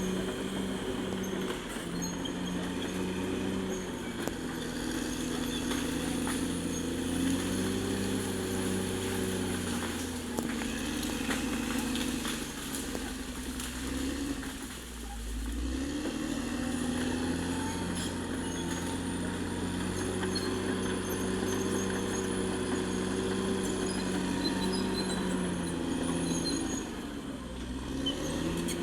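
Caterpillar D6R XL bulldozer's diesel engine working under load, its pitch shifting as it pushes. About halfway through, the engine note sags and then climbs back up.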